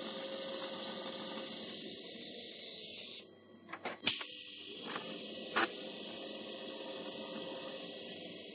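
TIG welding arc hissing steadily as high-speed steel is welded to a stainless steel tool shank. The hiss dips briefly a little after three seconds in, with sharp clicks about four and five and a half seconds in.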